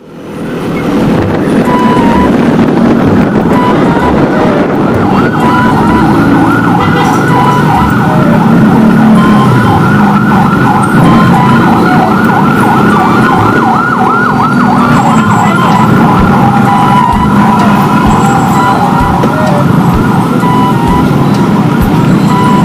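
A siren in a fast, repeating rising-and-falling yelp, strongest through the middle stretch, over continuous loud road and traffic noise.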